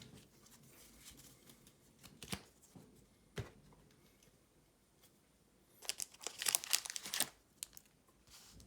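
Crinkling of a foil booster-pack wrapper being handled, with a few light clicks early and a dense burst of crinkling about six to seven seconds in.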